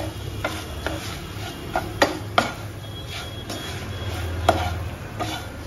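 Wooden spatula knocking and scraping against a nonstick kadhai as spice-coated green chillies are stirred with ground fennel, in irregular taps, the loudest about two seconds in and again near the end. A low steady hum runs underneath.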